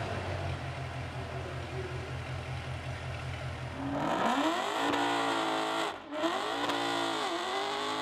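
Mercedes C63 AMG's 6.2-litre V8 idling with a steady, pulsing exhaust burble through an IPE valve exhaust. About four seconds in, the idle gives way to a car engine accelerating, its pitch climbing with a brief break near six seconds, like a gear change.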